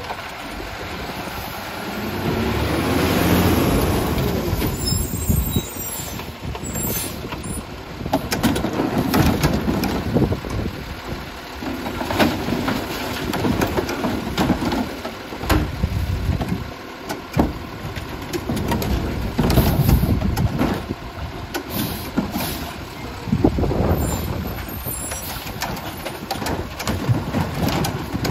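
Heil MultiTask side-loader garbage truck pulling up and working the curb: its engine rises and falls in several surges while the automated arm lifts and dumps wheeled carts into the hopper, with knocks and bangs of the plastic carts.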